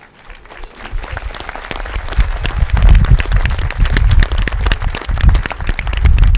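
Outdoor audience applauding, building over the first two seconds from scattered claps to full applause, with a heavy low rumble underneath from about two and a half seconds in.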